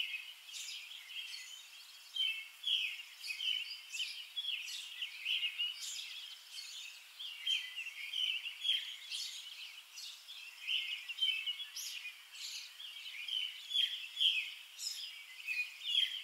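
Many small birds chirping and singing at once, a dense chorus of short, high chirps with no pause.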